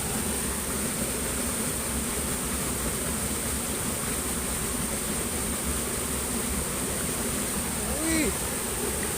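Steady rush of flowing stream water with a steady high hiss over it. About eight seconds in, a short voice exclamation rises and falls in pitch.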